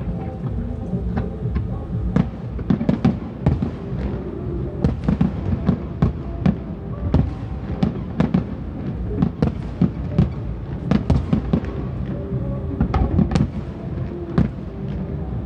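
Fireworks display: a rapid, irregular series of bangs, several a second, with music playing underneath.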